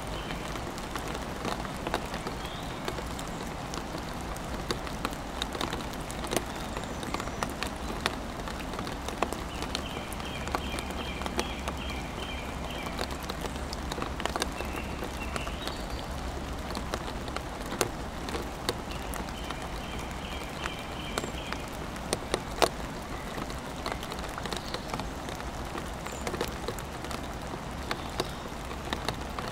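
Steady rain, with many single drops landing close by as sharp ticks. A bird sings a short trill twice, about ten and twenty seconds in.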